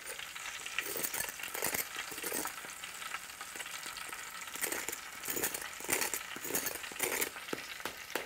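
Whole pork belly sizzling and crackling as it roasts at high heat, with irregular pops over a steady hiss of spitting fat.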